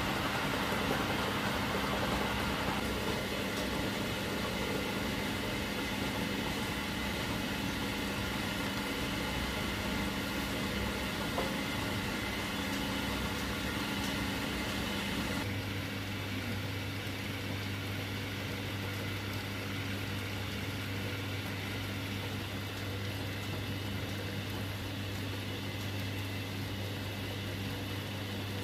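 Belt-driven wood lathe drive running steadily: the motor, belts and line-shaft pulleys make a continuous mechanical hum. About halfway through, the hum changes abruptly to a lower, duller drone.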